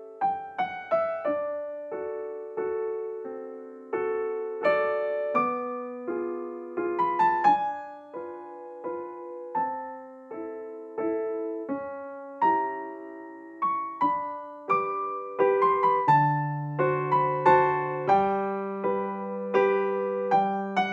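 Background music: a piano-like keyboard plays a melody of struck notes that each fade away. A deeper bass note comes in about 16 seconds in.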